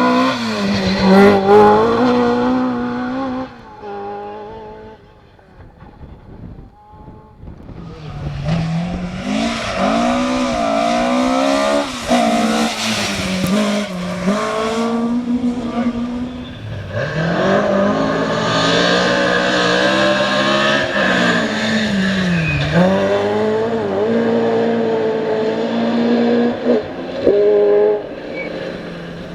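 Ford Escort rally car engines at full throttle, pitch climbing and dropping back repeatedly as the cars rev and change gear. It goes quieter for a few seconds between passes, then loud again.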